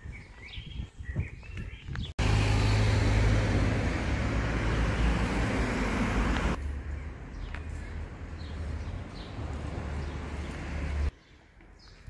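Street ambience with birds chirping, then, after an abrupt cut about two seconds in, a loud steady rushing noise over a low rumble. It eases to a quieter rumble with a few more chirps and cuts off abruptly near the end.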